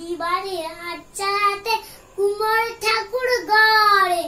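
A young boy singing solo without accompaniment, in short phrases of held, gliding notes with brief pauses between them.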